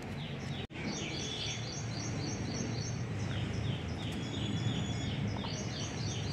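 A bird singing runs of short, quickly repeated, falling high notes, about four a second, over a steady low background rumble. The sound drops out for an instant about a second in.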